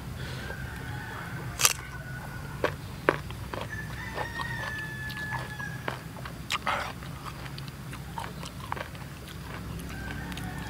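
Crisp crunches of biting into slices of unripe young mango, then chewing, in a few sharp bites early on and smaller clicks after. A drawn-out animal call sounds in the background about four seconds in.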